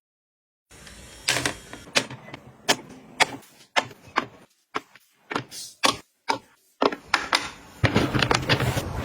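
Hard objects being handled and set down: a run of irregular sharp clicks and taps that gets busier near the end.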